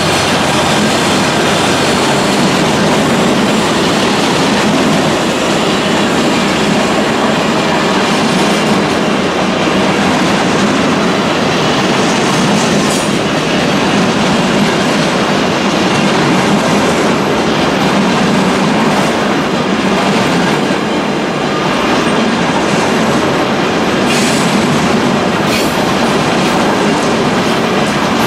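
Intermodal container wagons of a freight train rolling past at speed: a loud, steady rumble of steel wheels on the rails.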